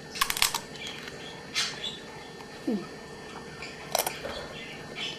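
Crisp lettuce leaves crunched between the teeth: a quick run of crackling crunches right at the start, then single crunches as he chews, about a second and a half in and again near four seconds. A short falling squeak-like tone comes in between.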